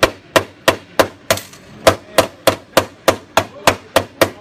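A hammer tapping on a dented metal panel in a quick, even rhythm, about three sharp blows a second, with a brief pause around a second and a half in.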